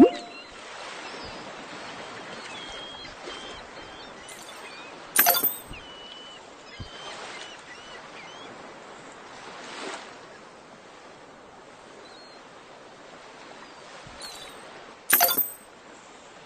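Steady wash of sea surf with faint high chirps, broken twice by a loud sharp clatter about ten seconds apart.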